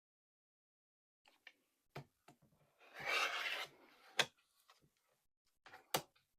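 Fabric being cut on a quilting table: a scraping cut lasting just under a second, with sharp clicks as tools are picked up and set down.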